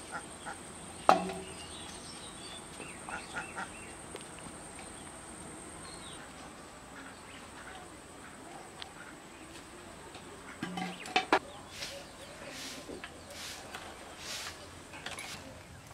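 Village yard sounds: chickens clucking and small birds chirping in scattered short calls, with a sharp knock about a second in and a couple more around eleven seconds.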